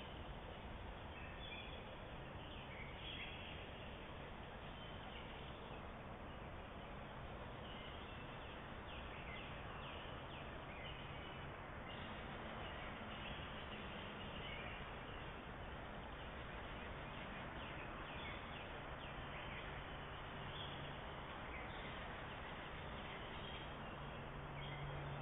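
Outdoor ambience: scattered short bird calls over a steady hiss of background noise, with a low steady hum growing louder near the end.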